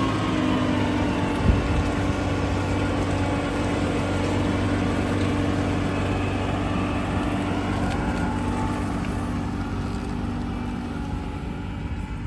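A vehicle engine running steadily under a wide mechanical noise, its pitch easing slightly down at the start and then holding.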